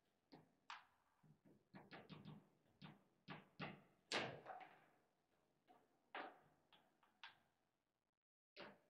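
Foosball table in play: an irregular string of sharp knocks and clacks as the ball is struck by the rod figures and rebounds off the table walls. The loudest knock comes a little past halfway and rings on briefly. After a short lull, one last knock comes near the end.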